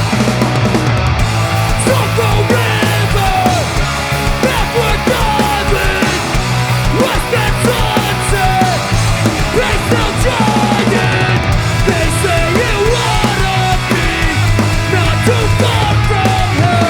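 A hardcore punk band playing loud and fast: distorted electric guitars, bass and a pounding drum kit, with no pause.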